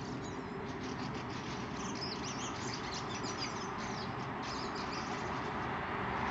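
Dawn chorus of many unseen birds in trees, a dense twittering of short high chirps and whistles like a flock of budgerigars, thickest in the middle, over a steady low background rumble.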